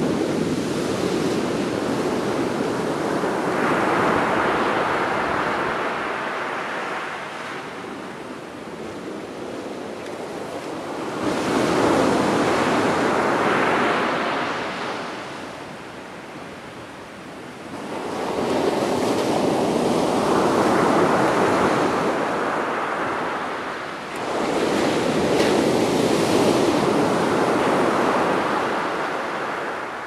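Rough-sea surf breaking and washing up a sandy beach: a rushing wash that swells and fades slowly, four times.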